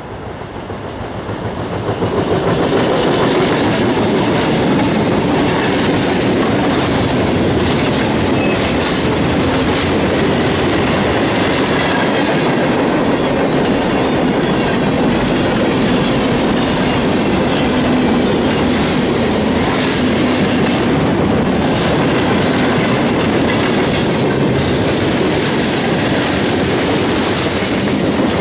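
Diesel-hauled freight train passing close by. The sound swells over the first couple of seconds as the locomotives arrive, then holds as a steady clatter of freight-car wheels on the rails.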